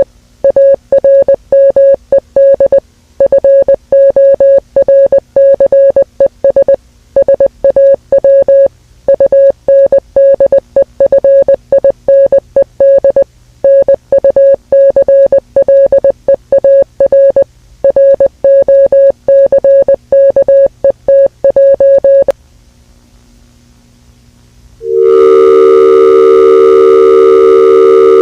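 Electronic alert beeps: a single steady tone keyed on and off in an irregular run of short and long pulses, Morse-code-like. It stops about 22 seconds in, and after a short hush a loud, steady alarm tone of several pitches sounds at once, siren-like.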